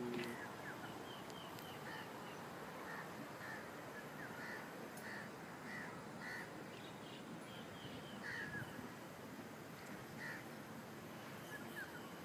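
Birds calling faintly: short high chirps and calls scattered throughout, some in quick runs of three or four notes, over a steady outdoor hiss.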